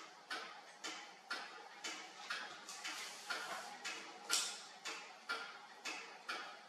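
A fine steel needle in a pin vise scratching at a vintage watch dial in short, regular strokes, about two a second, picking out dirt around the edge.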